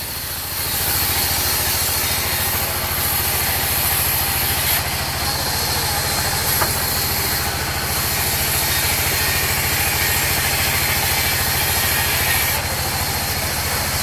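Sawmill's vertical band saw running steadily as its blade cuts lengthwise through a log pushed along on the wooden carriage table. The sound steps up about half a second in.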